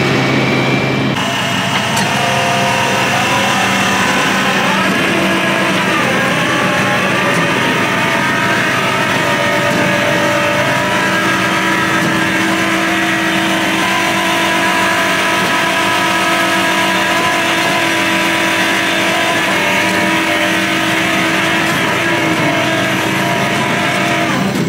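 A motor vehicle's engine running steadily and loudly, with a brief change in pitch about five seconds in.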